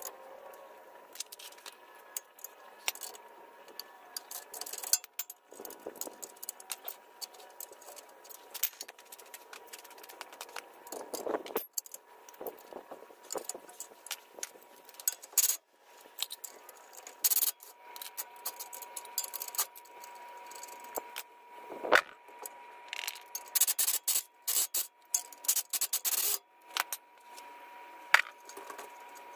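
Metal hand tools clinking, scraping and knocking against a Geo Tracker's front hub and suspension parts, in irregular sharp clicks with a few louder metallic hits.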